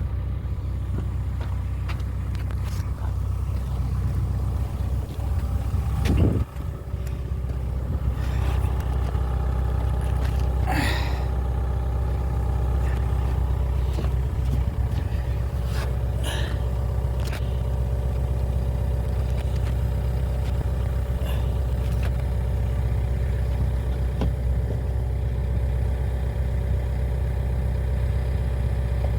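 Excavator's diesel engine running steadily, with a few scrapes and clanks breaking in, the loudest about six seconds in.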